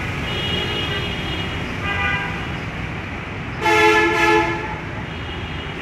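Vehicle horns honking over steady road traffic: fainter toots in the first two seconds, then a louder double honk a little past halfway.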